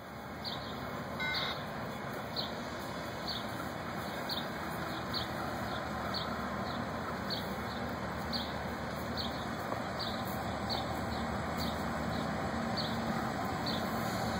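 Approaching diesel freight locomotive: a low engine rumble that slowly grows louder. A bird chirps over it, one short high chirp about every second.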